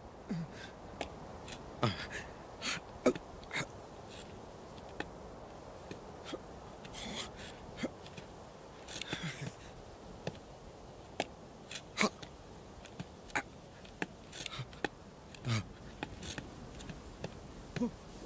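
Quiet outdoor ambience with a steady soft hiss. Scattered short clicks and ticks run through it, along with a few brief low sounds that fall in pitch.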